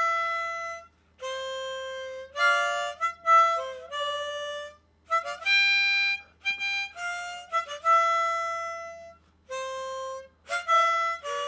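Harmonica played in short melodic phrases of held notes, with brief pauses between them, recorded close-up on a cardioid condenser microphone.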